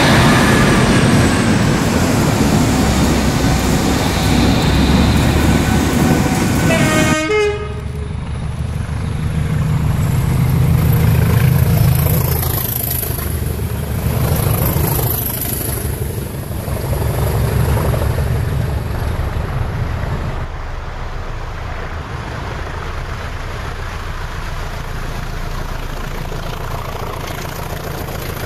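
British diesel locomotives running under heavy power, the engine sound swelling and fading as they pass, with a short horn blast about seven seconds in. In the later part, English Electric Class 20 locomotives are working hard.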